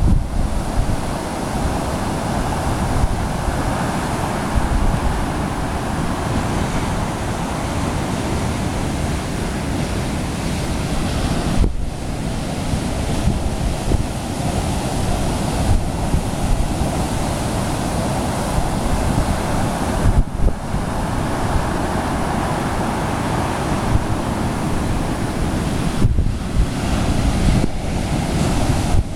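Ocean surf: large waves breaking and foam rushing in a continuous loud wash, with wind buffeting the microphone as a deep rumble.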